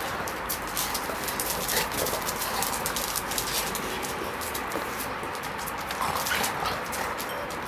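Two dogs playing rough, with a few short whines among many light clicks and scuffs of paws on concrete.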